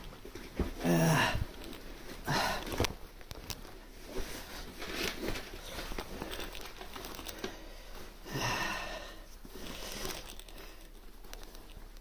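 Rustling and crinkling of clothing and boots as a person handles and laces up winter boots, in short bursts a few seconds apart.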